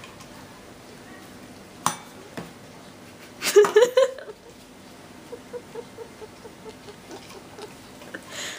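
A sharp clink of dishware about two seconds in, then a brief, louder burst of voice about a second and a half later.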